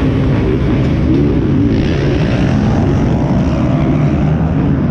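Motocross dirt bike engines running, heard close up from a rider's helmet: a loud, steady engine drone with a dense low rumble that holds without big revs.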